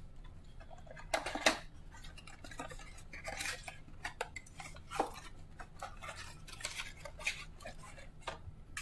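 Cardboard mega box of trading cards being torn open and its foil-wrapped card packs handled: irregular rustling, crinkling and clicks, loudest about a second and a half in.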